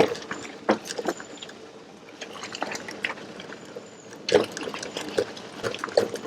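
Raindrops tapping irregularly, a scatter of sharp ticks over a faint steady hiss.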